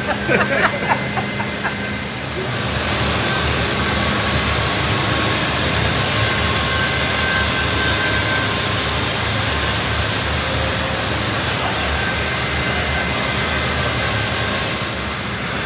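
COSMO sanding robot's orbital sander running on a cabinet door panel, with its dust extraction: a steady hiss over a low hum, starting about two and a half seconds in.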